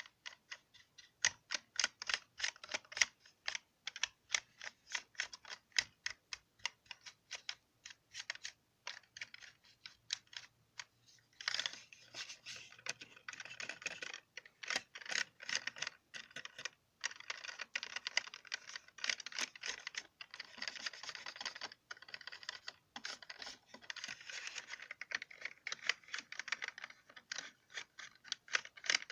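Computer keyboard keys clicking under the fingers. At first they come as separate presses, about two or three a second, then from about a third of the way in as fast, dense typing broken by short pauses.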